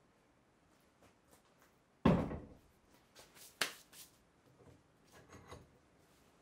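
A heavy Paramo No. 5 cast-iron bench vice set down on a wooden bench with one loud thump about two seconds in. It is followed by a sharp click and a few lighter knocks as it is settled into place.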